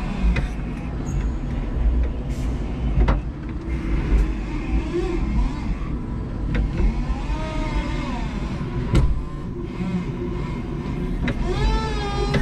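Electric forklift working a pallet load: a steady low rumble with a few sharp clicks and knocks, and a motor whine that rises and falls in pitch twice, the second time near the end.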